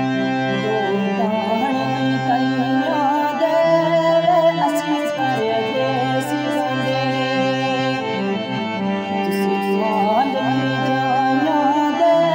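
Gojri mahiye folk music: sustained low notes held under a wavering, ornamented melody line.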